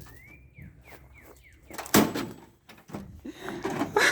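A few short high falling squeals, then a single sharp bang about two seconds in: a component bursting inside a running microwave, which they take to be the capacitor blowing.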